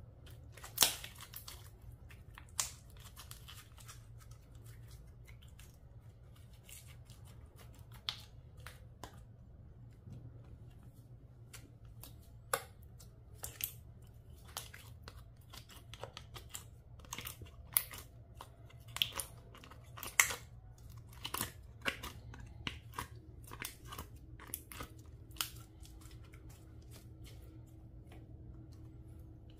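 Slime being worked by hand, with irregular sharp pops and clicks, the loudest about a second in and near the two-thirds mark.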